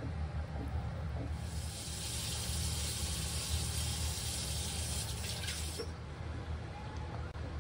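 Steady hiss of running water that starts about a second and a half in and cuts off sharply near the end, over a constant low hum.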